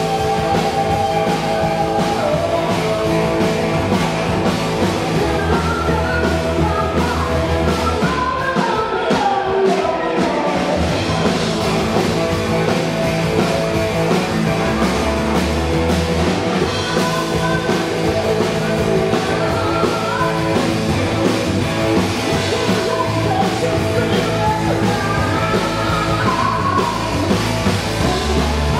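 Rock band playing live at full volume: distorted electric guitar, bass guitar and drum kit keep a steady beat, with a melodic line wavering over the top.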